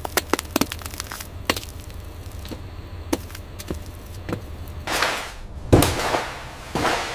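Scattered sharp clicks and knocks, then from about five seconds in a few swishing sweeps with a hard knock among them.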